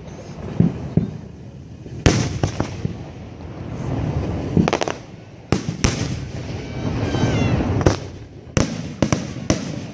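Aerial firework shells bursting overhead: sharp booms spaced a few seconds apart, then three in quick succession near the end, with rumbling and crackling between them.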